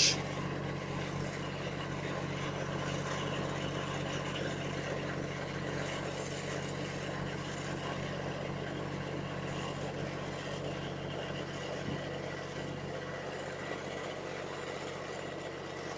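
Steady low hum of an idling engine, with an even background hiss and no change in level.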